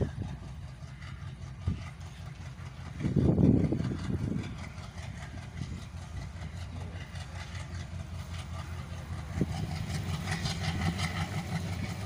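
WDM-3A diesel-electric locomotive's ALCO engine running as it hauls the train, a steady low rumble drawing nearer, with a brief louder rumble about three seconds in. From about ten seconds in the sound grows louder and brighter as the train approaches.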